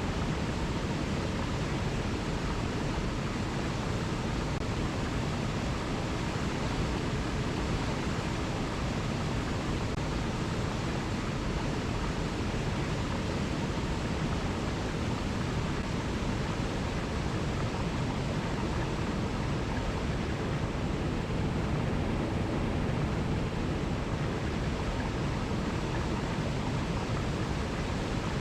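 Alpine mountain river rushing over cascades: a steady, even rush of water with a deep low rumble.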